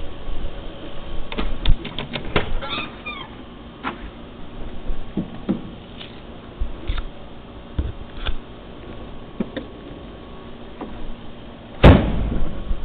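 Scattered clicks and knocks as things are handled in an open car trunk, with a brief high wavering sound about three seconds in, then one loud slam near the end as the trunk lid is shut.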